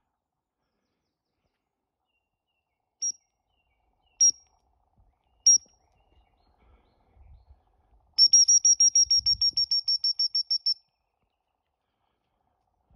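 Gundog training whistle blown by the handler: three short single blasts about a second apart, then a rapid trill of about twenty pips. These are the standard stop and recall signals for a retriever working out on a blind retrieve.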